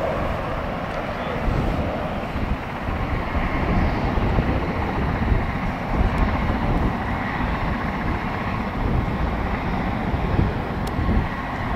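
Boeing 787 Dreamliner's twin turbofan engines heard from the ground as the airliner flies a steep banked turn overhead: a steady, deep rushing jet noise.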